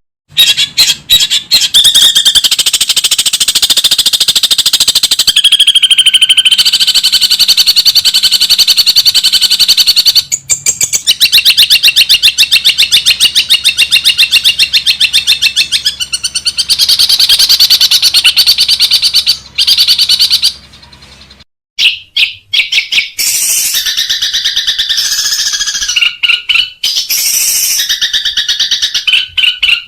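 Long-tailed shrike (cendet) singing a loud, rapid, harsh chattering rattle, the bird's fast 'ngekek' bursts. It breaks off briefly a few times and starts up again.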